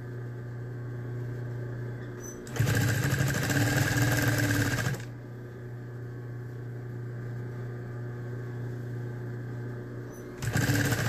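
Industrial sewing machine stitching bias tape onto terry towel in two runs: one starting about two and a half seconds in and lasting a little over two seconds, and another starting near the end. Between the runs the machine's motor hums steadily.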